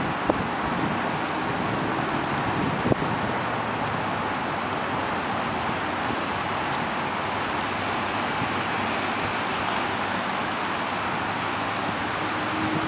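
Steady rushing noise of road traffic, mixed with wind on the microphone, with two light knocks in the first few seconds.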